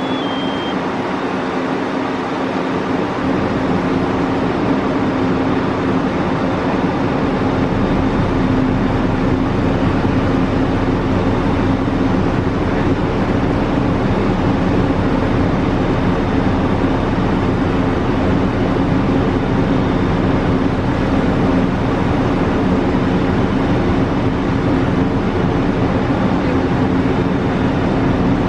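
A large engine running at a steady speed, with a constant drone and rumble. The low rumble builds up over the first few seconds, then holds even.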